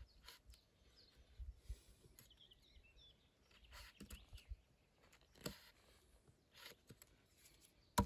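Near-silent outdoor quiet, broken by scattered soft knocks and clicks, with faint bird chirps about two seconds in.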